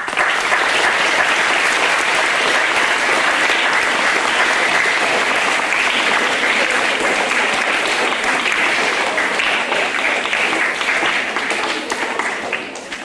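An audience of students clapping in a hall, starting abruptly and fading out over the last second or so.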